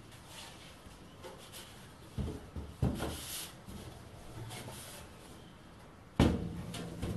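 Light sheet-metal chip shield, made from old metal shelving, knocking and rattling as it is lifted in and set down in a lathe's chip tray: two knocks a couple of seconds in and a louder clunk near the end.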